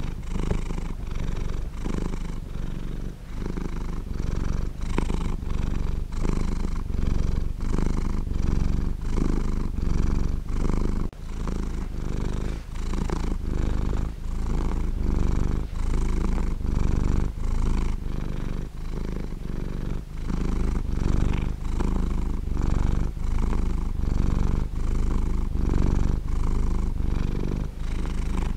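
Domestic cat purring steadily, a deep rumble that swells and eases with each breath about once a second.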